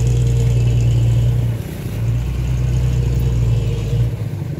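Mitsubishi Fuso dump truck's diesel engine running hard as the truck inches over a broken dirt road. The steady engine note dips about a second and a half in, picks up again, and drops off about four seconds in.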